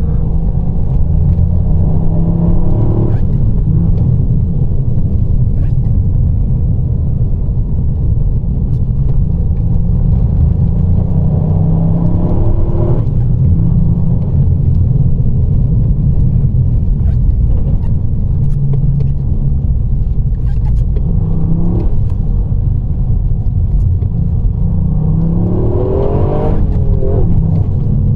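A car driving a winding stage road: a steady low rumble of engine and road noise, with the engine note rising four times as it accelerates and dropping off sharply each time as the driver shifts or lifts.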